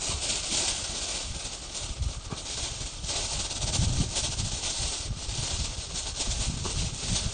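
Thin plastic bag crinkling and rustling as it is handled and twisted: a continuous stream of small crackles.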